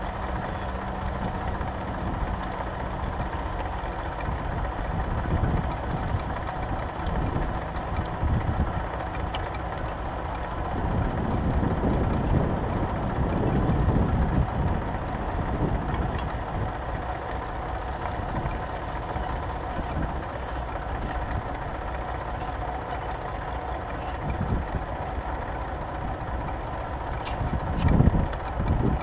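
Tractor engine running steadily, pulling a plough. A low rumble swells around the middle and again just before the end.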